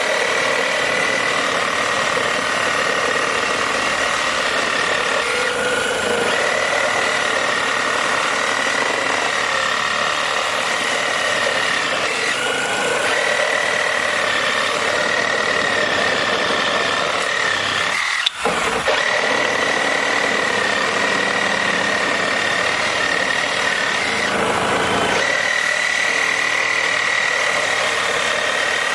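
Two DeWalt reciprocating saws, a cordless 20V XR brushless compact and a corded one, running together and sawing through strips of wood. The steady high motor whine breaks off briefly every six seconds or so, and the sound drops out for an instant about 18 seconds in.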